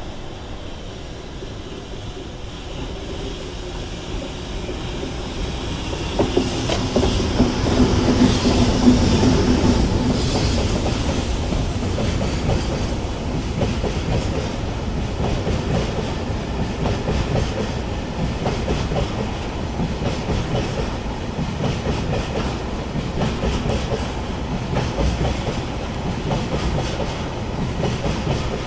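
A freight train passing: the electric locomotive's hum grows and peaks about seven to ten seconds in, then a steady, rhythmic clickety-clack of the wagons' wheels over the rail joints as the train rolls by.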